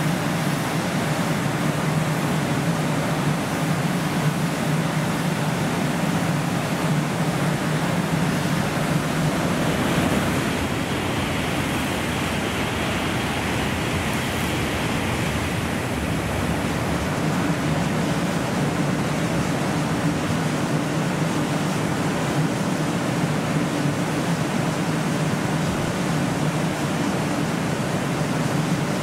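Steady rain hiss throughout. About ten seconds in, a 16-car N700A Shinkansen passes through the station at high speed without stopping: a rushing whoosh of air and wheels that lasts about six seconds, then sinks back into the rain.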